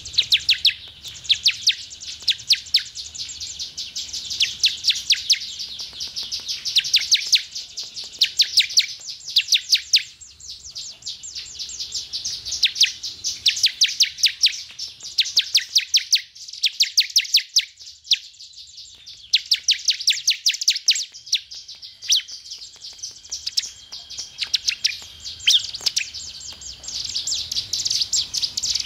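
Ciblek (prinia) singing: rapid runs of sharp, high chirps in repeated bursts, with a brief lull about two-thirds of the way through. This is ciblek song used to stir a caged ciblek into singing.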